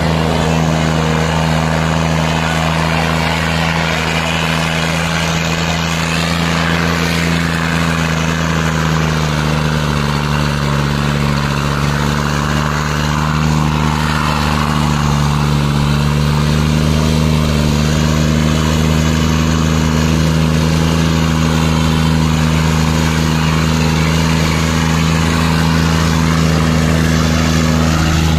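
Diesel tractor engine working hard under load while dragging a heavy harrow through sand: a steady, loud drone whose pitch sags slightly around the middle and then recovers.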